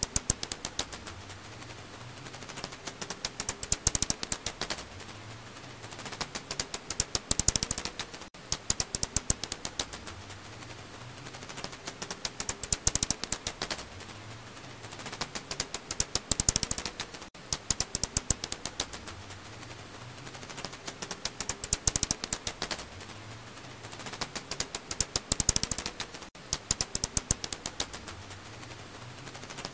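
Recorded calls of the Alashanian pipistrelle (black house bat, Hypsugo alaschanicus), heard as trains of rapid clicks that come in bursts every few seconds over a faint hiss.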